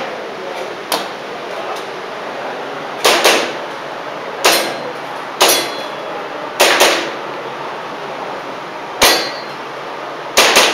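Airsoft pistol shots with BBs clanging on metal targets: about eight sharp cracks and clangs, some in quick pairs, a second or two apart, over a steady background noise.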